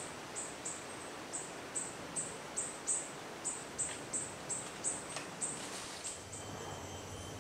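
Rainforest ambience: an insect calling in short, high-pitched chirps, about two or three a second, over a steady hiss. The chirping stops about six seconds in and the background changes to a quieter hum with a faint high tone.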